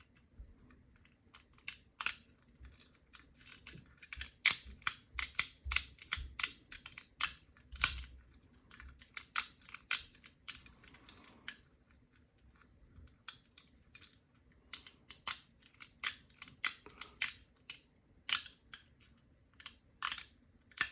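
Irregular light metallic clicks and ticks from a lever-lock pick, made from a brass skeleton key, working inside a four-lever padlock as it lifts and indexes the levers. The clicks come in clusters, with a few quieter gaps.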